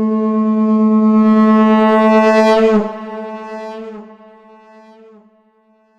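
Shankh (conch shell) blown on a long, steady note pitched at A. It grows brighter just before it stops sharply about three seconds in, then a fading tail of the same note dies away over the next couple of seconds.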